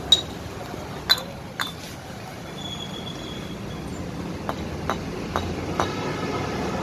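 Sharp metallic clinks of tools and parts being handled during a motorcycle self-starter motor repair: three louder clinks in the first two seconds, then four lighter ones about half a second apart, over a steady background hum.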